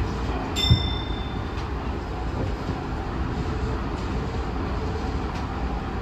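Tobu Tojo Line Kawagoe Limited Express train running along the track, heard from the front of the train as a steady rumble. About half a second in there is a single sharp metallic clank with a short high ringing tone.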